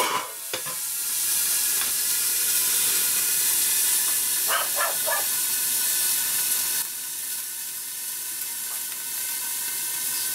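Beef steaks sizzling in rendered sheep tail fat in a covered cast-iron roasting pan, cooking on the pan's stored heat. A metal lid clanks down onto the pan at the start, and the steady sizzle dims slightly about two-thirds of the way through.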